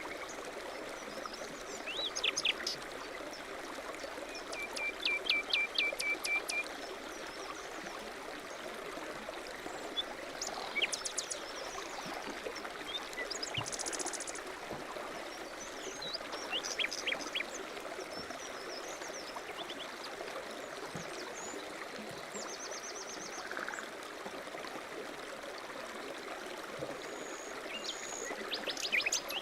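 Mountain stream running steadily, with songbirds calling over it now and then: short series of chirps and a rapid trill of repeated notes.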